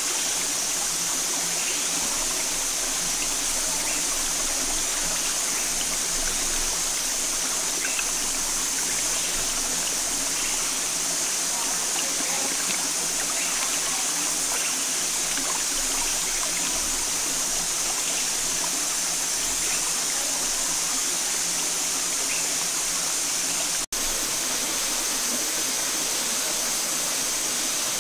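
Shallow rocky stream flowing steadily, water rushing and trickling over stones. The sound drops out for an instant near the end.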